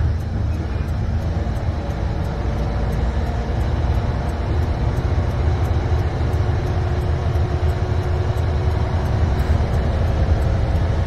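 Semi truck's MaxxForce 13 diesel engine running steadily, heard from inside the cab as the tractor pulls a loaded container along at low speed, with a low rumble and road noise.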